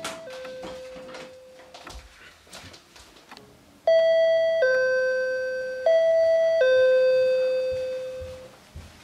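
Electronic two-tone door chime of an Aiphone video intercom, ringing ding-dong twice about four seconds in, each short high note dropping to a longer lower one. A fainter ring of the same chime dies away in the first two seconds, with faint knocks around it.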